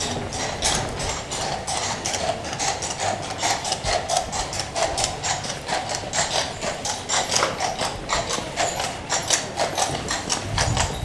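Steady clopping of hard steps on cobblestones, about four sharp strikes a second.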